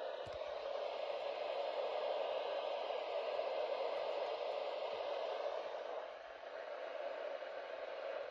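Weather radio receiver putting out steady static hiss with no broadcast coming through; the hiss dips a little about six seconds in.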